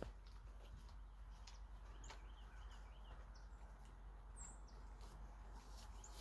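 Faint, scattered bird chirps and short calls over a steady low background.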